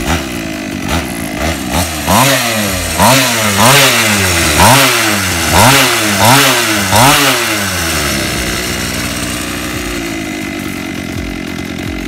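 50cc two-stroke engine of a Go-Ped scooter running just after a pull start. It idles, is revved in about seven quick blips of the throttle from about two seconds in, then drops back to a steady idle.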